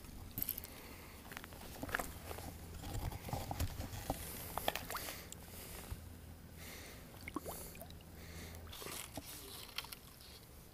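Scattered small clicks and rustles of fishing gear and clothing being handled close to the microphone, over a low steady hum that stops near the end.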